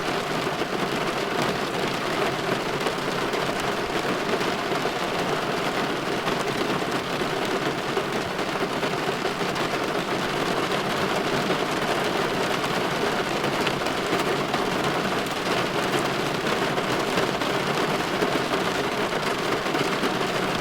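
Steady rain falling against a window pane, an even patter with scattered drop ticks.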